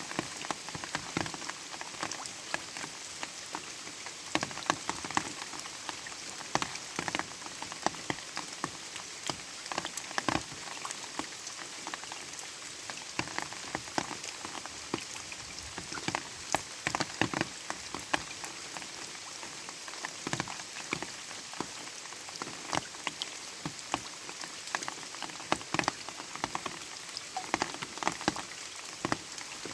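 Light rain falling steadily, with many separate drops pattering close by at irregular intervals over a soft hiss.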